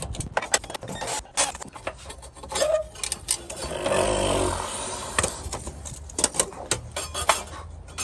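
Metal tools and clamps clinking and knocking in a quick irregular run as hands work on rusted hose clamps and the fuel line under a van, with a longer rustling scrape around four seconds in.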